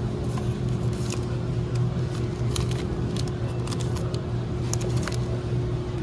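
Handled packaged goods crinkling and clicking in bursts over a steady low hum of grocery-store ambience.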